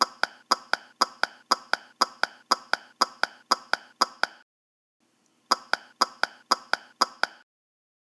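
A sound effect of quick running footsteps: identical short taps, about four a second. They break off about four seconds in, start again a second later and stop shortly before the end.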